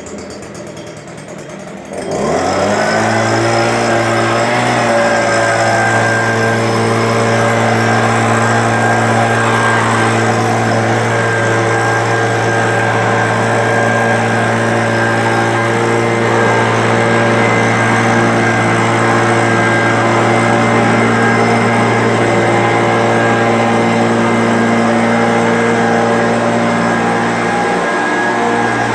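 A small engine starts about two seconds in, rising in pitch as it comes up to speed, then runs steadily at a constant speed, dipping briefly near the end.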